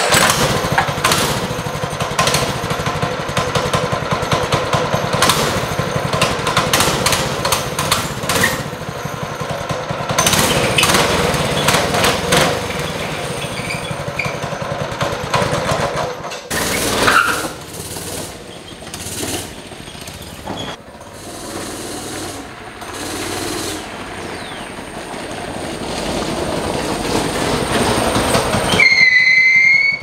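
Go-kart's 6.5-horsepower single-cylinder engine catching on a pull of the recoil starter and then running steadily. Its level dips and wavers after about sixteen seconds and climbs again toward the end. A brief high squeal sounds near the end.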